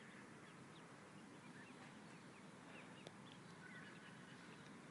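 Faint, scattered high peeps of a duckling over a quiet outdoor background.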